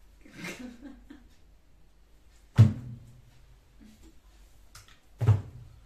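Two loud, dull thuds about two and a half seconds apart, from things being handled and put down while packing up. A short rustle of paper files comes about half a second in.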